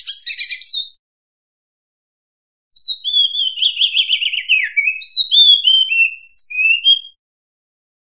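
Oriental magpie-robin (kacer) singing: a short burst of whistled notes in the first second, then, after a pause of about two seconds, a longer varied phrase of clear whistles, rapid trills and downward-sliding notes lasting about four seconds.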